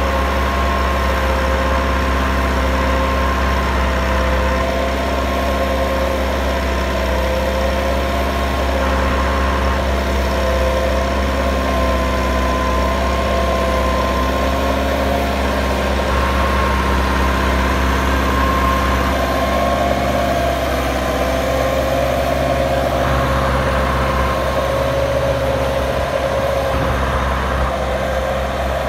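Massey Ferguson 385's four-cylinder diesel engine running steadily under load as it drives a 60-blade rotavator through the soil. A steady whine sits over the engine note.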